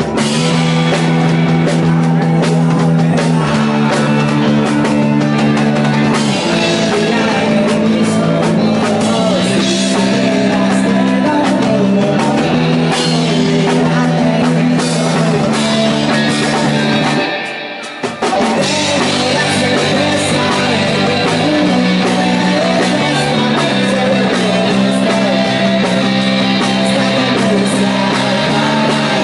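A live indie rock band playing: electric guitars, bass and drums, with sung vocals. The music drops out briefly about seventeen seconds in, then comes back.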